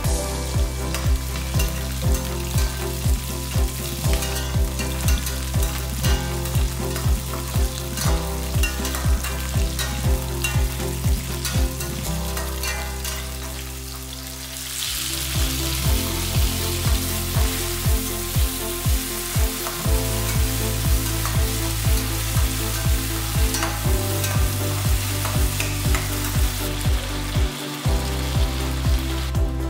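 Shallots, garlic and curry leaves sizzling in hot oil in a stainless steel pan, stirred with a spoon, under background music with a steady beat. The sizzling gets louder about halfway through.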